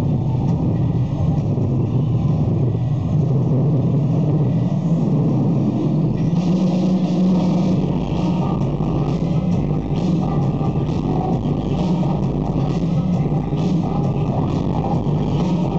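Loud electronic dance music played over an arena sound system, heavy in the bass, with a steady beat that comes through more clearly about six seconds in.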